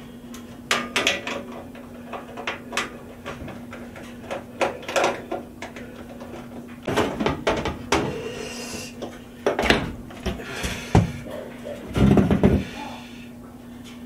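Sheet-metal side panel of a corn stove being worked loose and lifted off: a string of clicks, scrapes and metal clunks, with heavier thumps around seven, ten and twelve seconds in.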